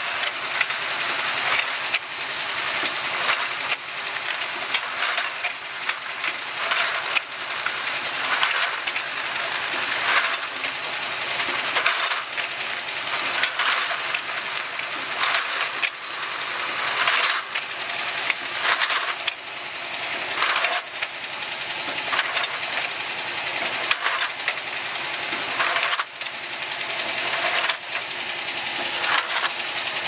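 Automatic vial filling and crimping machine running: a dense, continuous clatter of glass vials knocking against each other and the rotary feed table, over the machine's rattling mechanism.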